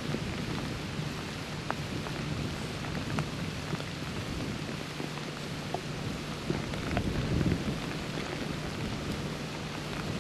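Freezing rain falling on the woods: a steady hiss with scattered small ticks of ice hitting branches and dry leaves, over a low steady rumble.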